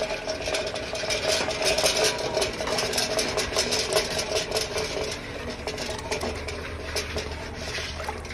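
Soapy water being churned and splashed by hand in a galvanized metal bucket to whip up car-shampoo foam, a busy run of sloshing and slapping, over a steady mechanical hum.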